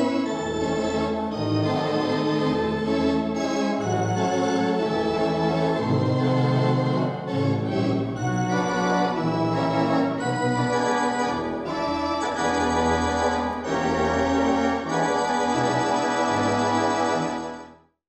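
The Mighty Wurlitzer theatre pipe organ, voiced on high wind pressure, playing full sustained chords over a bass that changes note about once a second. The music fades out at the very end.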